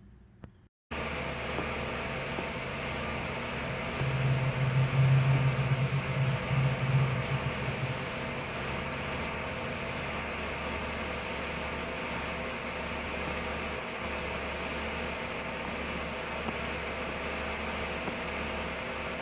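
Toyota engine idling steadily, starting about a second in, with a louder low hum from about four to eight seconds in.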